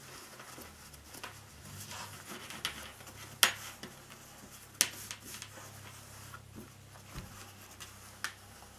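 Quilted cotton fabric rustling and rubbing as a turned-out bag is handled and a long thin stick is pushed inside it to work out the seams and corners, with two sharp taps about three and a half and five seconds in.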